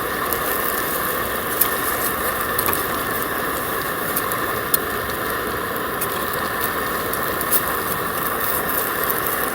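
Food frying in a pan over a camp stove burner: a steady hiss with frequent small crackling pops.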